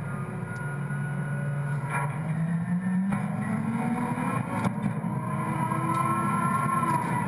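Refuse truck's diesel engine pulling away, its pitch rising steadily over the first four seconds or so, with a few light knocks from the body and a higher whine near the end.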